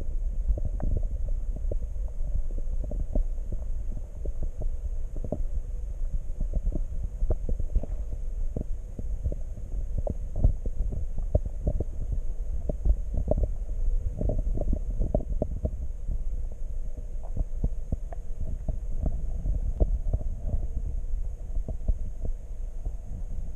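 Underwater audio from a camera submerged in a weedy pond: a steady low rumble with many scattered clicks and ticks and a faint high hiss.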